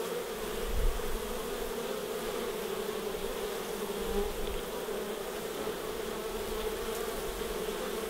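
A mass of honey bees buzzing at a hive entrance: a steady, even hum.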